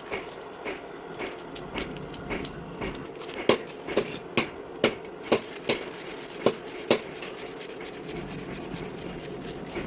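Repeated scraping strokes with many sharp clicks, and a run of louder taps from about three and a half to seven seconds in.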